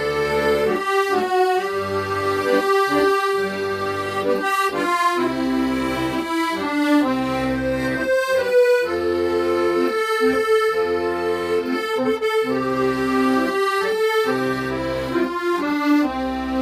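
Accordion playing a slow song melody in long held notes, with the left-hand bass and chord buttons keeping a steady accompaniment underneath.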